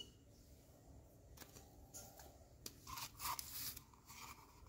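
Faint rustling and crinkling of plastic packaging as a mouse is handled, with a few small clicks; the rustling is loudest about three seconds in.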